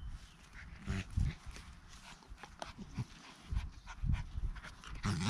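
West Siberian laika puppy and an adult laika play-fighting, making short low growls and whines every second or so, with quieter stretches between.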